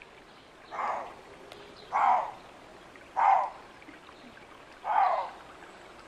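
Lynx calling: four short calls spaced about one to two seconds apart, each one falling in pitch.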